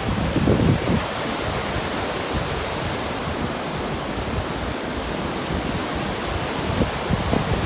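Steady rush of ocean surf and wind, with gusts buffeting the microphone near the start and again near the end.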